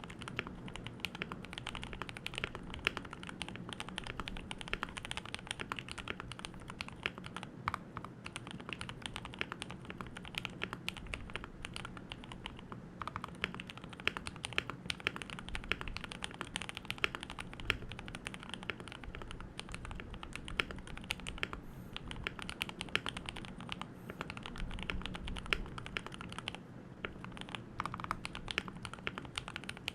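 Keychron K2 V2 mechanical keyboard being typed on continuously, with rapid keystrokes from lubed Gateron Milky Yellow Pro linear switches, lubed plate-mounted stabilizers and stock keycaps in a foam-dampened case. The typing pauses briefly twice.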